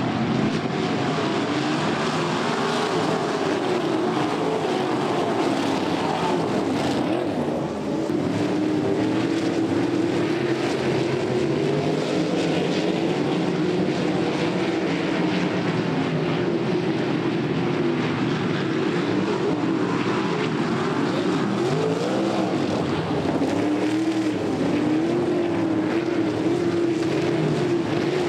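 A field of winged dirt-track sprint cars racing, their V8 engines running hard, the pitch rising and falling as cars pass and go round the track.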